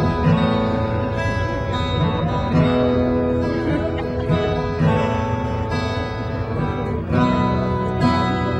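Acoustic guitar music, chords held and changing every second or two: the instrumental introduction before the singing begins.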